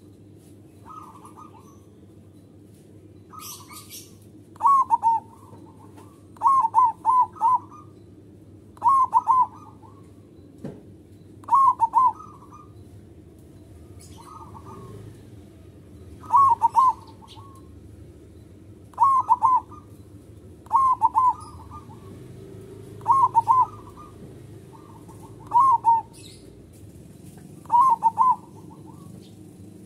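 Zebra dove (perkutut) singing its staccato cooing song, a short phrase of two to four quick notes repeated about every two seconds. Faint high chirping sounds behind it.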